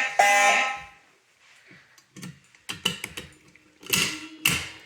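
Fire alarm horn sounding in short repeated blasts, the last one cutting off about a second in, as the alarm is silenced. After it come scattered clicks and knocks of hands working the fire alarm control panel to reset the zone 3 alarm, two of them louder near the end, over a faint steady low tone.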